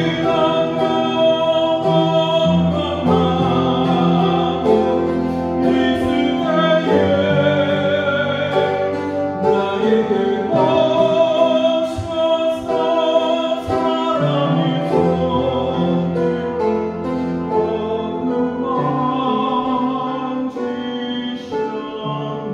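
A man singing a Korean worship song while accompanying himself on an upright piano, with long held notes.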